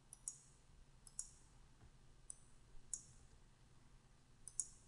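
Faint computer mouse clicks, about five sharp clicks spread unevenly, several as quick press-and-release pairs.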